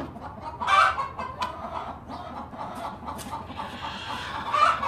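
Chickens clucking and calling, with a louder call about a second in and another near the end, and a couple of short sharp knocks in between.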